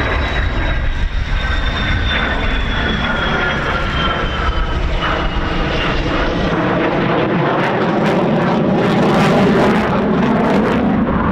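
Belgian Air Force F-16's jet engine on a slow high-alpha pass: a deep rumble with a high whine that slowly falls in pitch. About seven seconds in the afterburner takes over, a louder, crackling rumble that peaks near the end.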